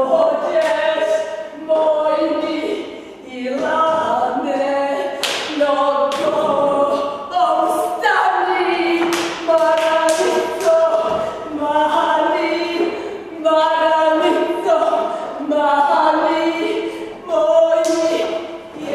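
Unaccompanied singing by women's voices, slow held notes that step up and down in pitch, with brief breaks between phrases.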